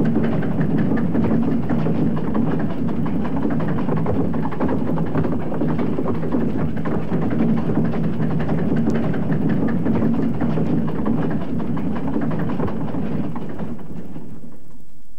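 A steam ferry's two-cylinder compound horizontal reciprocating engine, built 1882, running under way with a steady, dense rumble, heard from an old vinyl record. The sound fades away near the end.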